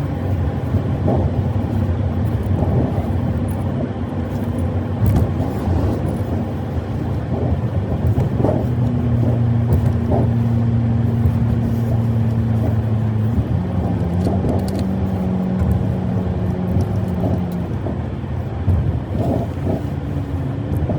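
Four-wheel-drive tow vehicle on the road, its engine running steadily under road noise with occasional knocks. The engine note steps down in pitch about two-thirds of the way through.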